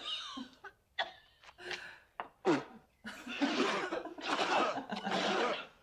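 Laughter: a few short breathy snickers, then a longer, denser stretch of laughing.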